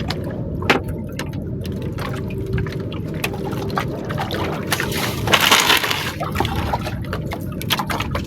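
Water sloshing and lapping around a small fishing boat, with scattered light knocks and a louder splashing rush about five seconds in.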